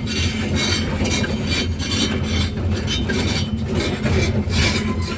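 Excavator's diesel engine running steadily with a low rumble, with irregular noisy bursts on top of it.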